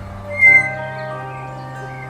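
Background music of sustained, gently shifting chords, with a short bright high note about half a second in.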